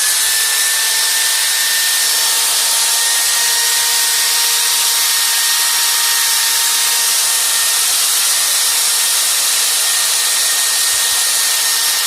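Mitsushi angle grinder's motor running free at full speed with no load: a steady high-pitched whine over hiss.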